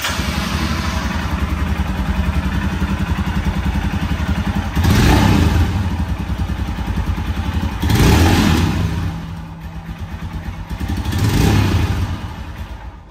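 Royal Enfield Scram 411's 411 cc single-cylinder engine idling through its exhaust, revved up three times a few seconds apart.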